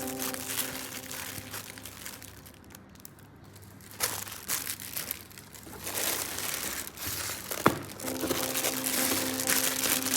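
Plastic packaging crinkling and rustling as toy pieces are handled, with one sharp click about three-quarters of the way through. Background music fades out over the first two seconds and comes back near the end.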